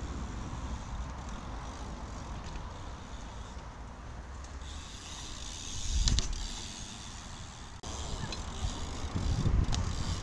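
A BMX bike rolling on asphalt, with tyre noise and wind rumbling on the microphone. There is a loud thump about six seconds in as the bike passes close by, and the sound changes abruptly just before eight seconds, with a few sharp clicks near the end.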